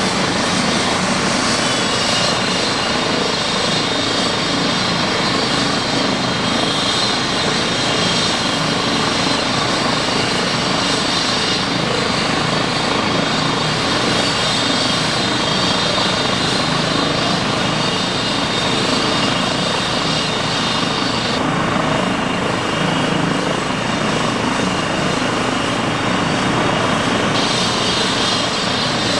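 Trauma helicopter's turbine engines and rotor running, a loud steady noise with a faint high whine above it.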